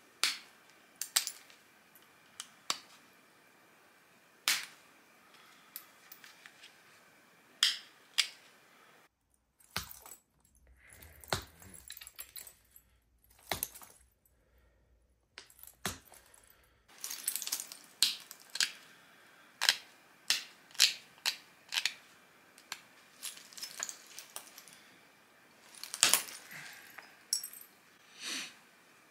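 Stone flake being pressure-notched with a hand-held notching tool: irregular sharp clicks and snaps as small flakes pop off the edge to form the teeth of a denticulate. There is a quieter stretch in the middle with only faint ticks.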